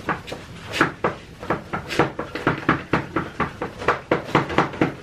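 A man's exaggerated heavy breathing: quick, sharp, rhythmic breaths through an open mouth that speed up to about four a second near the end.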